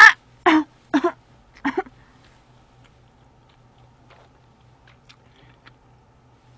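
A woman laughing in four short bursts about half a second apart, stopping after about two seconds. The rest is quiet except for a few faint clicks of chewing.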